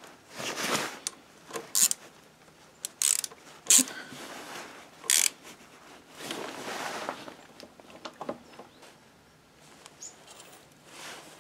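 Small socket ratchet wrench clicking in short runs while a bolt is tightened, among several sharp metallic clicks and clinks of tools and parts on the motorcycle engine.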